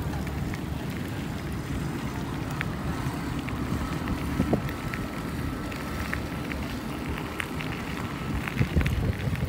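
Wind buffeting the microphone of a camera carried on a moving bicycle, a steady low rumble, with scattered light clicks and rattles from the ride.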